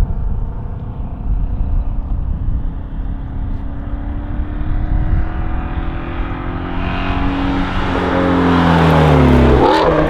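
Shelby GT350's 5.2-litre flat-plane-crank V8 exhaust, running through a Corsa Double Helix X-pipe resonator delete, as the car drives past: it builds up loud over the last few seconds, then drops in pitch and fades as it goes by near the end.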